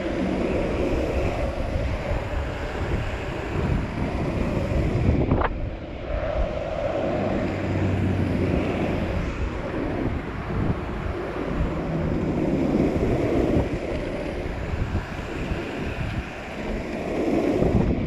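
Wind rushing over a pole-held action camera's microphone, with longboard skateboard wheels rolling over asphalt, a steady rumbling rush. A single sharp tick about five seconds in.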